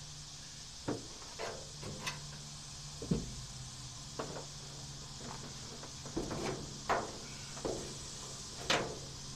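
Irregular knocks and clunks of objects being handled and set down, about ten in all, some with a short metallic ring, the loudest about three seconds in and near the end, over a steady low hum and hiss.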